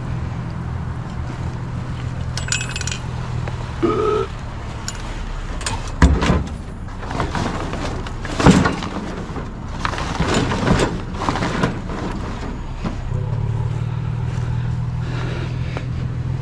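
A vehicle engine idling with a steady low hum, which drops away about five seconds in and comes back near the end. In between come several loud clanks and rattles of metal junk being handled.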